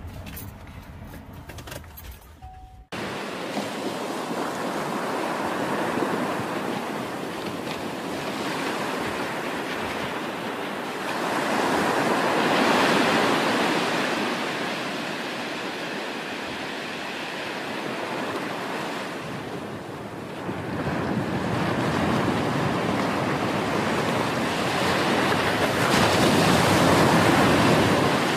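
Low car-cabin rumble, cut off about three seconds in by ocean surf: waves breaking and washing in, the roar swelling and easing over several seconds at a time.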